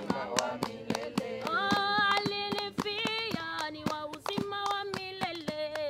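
A group of women singing a Swahili hymn chorus, holding long notes that step from pitch to pitch, over steady rhythmic hand clapping.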